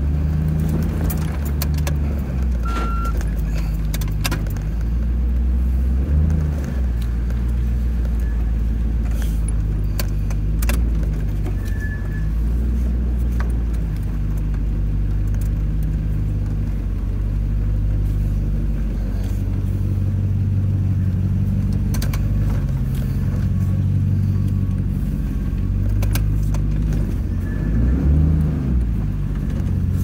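1997 Land Rover Defender 90's V8 engine running at low speed, heard from inside the cabin, its note rising briefly twice. Scattered clicks and light rattles sound throughout.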